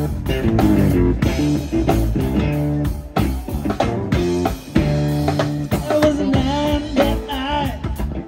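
Live rock trio playing: electric guitar through an amp, bass guitar and drum kit, in a passage without vocals. Near the end the guitar holds wavering, bent notes.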